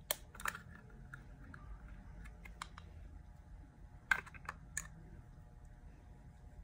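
Irregular sharp clicks and taps of a plastic makeup compact and scissors being handled, a couple near the start and a small cluster about four seconds in.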